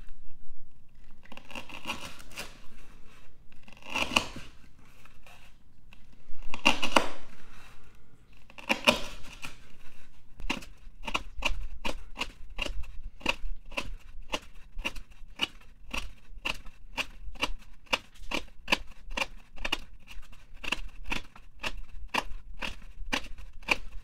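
Folding knife blade cutting through half-inch twisted sisal rope: a few separate slicing cuts, then, from about ten seconds in, a fast even run of short push cuts, two or three a second.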